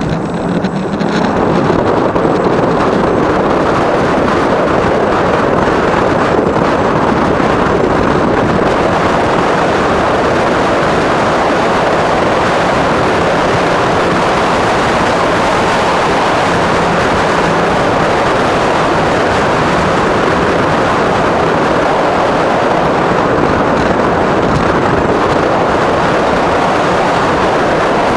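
Steady rush of wind and tyre-on-asphalt noise from a Qulbix Raptor electric bike riding along a paved road. It grows louder over the first couple of seconds, then holds level.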